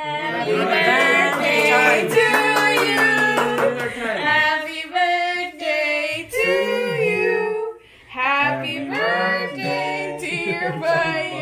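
A group of voices, women among them, singing a birthday song unaccompanied, with a short pause about two-thirds of the way through.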